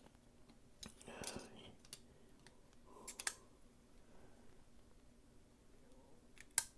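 Faint clicks and light taps of small metal knife parts being handled and fitted together while a folding knife's handle is reassembled, with one sharper click near the end.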